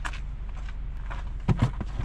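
Footsteps on dirt, then a few thumps about a second and a half in as a person climbs into a car's driver's seat through the open door. A low steady hum runs underneath.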